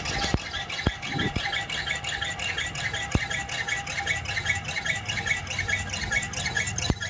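Tricycle front wheel hub squeaking rapidly and evenly as the wheel spins, about four or five squeaks a second. The squeak is later traced to the speedometer drive rather than the wheel bearings, which are still tight.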